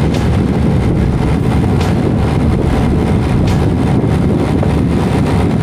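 Steady low rumble of engine and road noise from a vehicle driving along the road, with a few light clicks.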